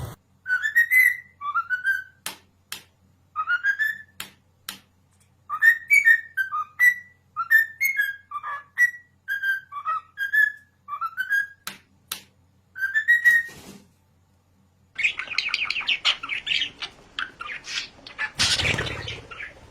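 A parrot whistling a run of short notes, each rising or falling in pitch, with sharp clicks between them. About fifteen seconds in, a harsher, rasping bird call takes over, and a loud noisy burst comes near the end.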